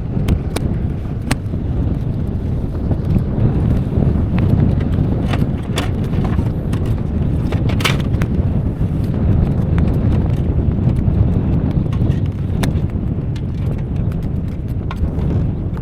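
Steady low rumble of wind buffeting the microphone, with scattered sharp clicks and knocks of gear being handled.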